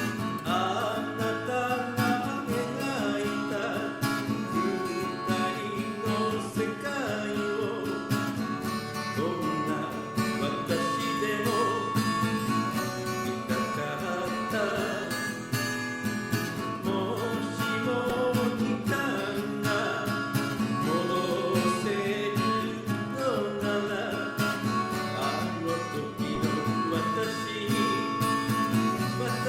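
A song: a singing voice over acoustic guitar accompaniment.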